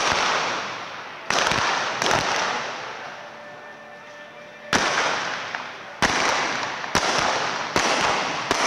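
A series of about eight gunshots from single-action revolvers firing black-powder blanks, shot from a galloping horse at balloon targets, each shot ringing and fading in the large arena. The shots come roughly a second apart, with a longer pause in the middle.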